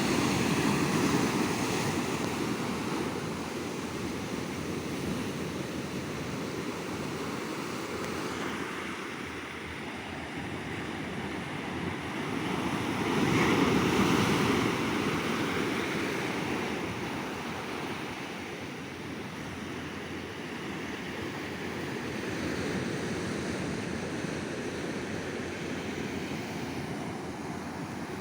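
Ocean surf breaking on a beach: a steady wash of waves with two louder swells, one near the start and the loudest about halfway through, with some wind on the microphone.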